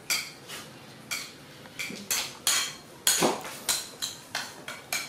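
Metal cutlery clinking against a dish: about a dozen sharp taps at an uneven pace, each with a short ring.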